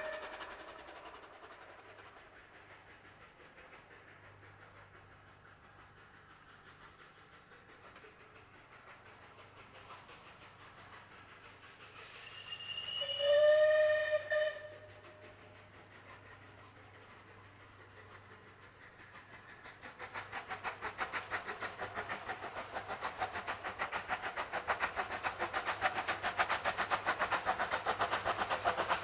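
A steam locomotive's whistle blows once, for about a second and a half, about 13 seconds in. From about 20 seconds in, a steam locomotive's exhaust beats come in an even rhythm, growing steadily louder as it draws near.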